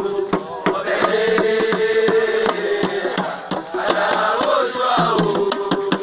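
Several voices chanting together over hand-played wooden drums beating a quick rhythm of about four strokes a second.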